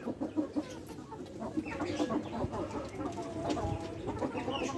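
A flock of Rhode Island Red chickens clucking, with many short calls overlapping irregularly as the birds gather at a dish of mealworms.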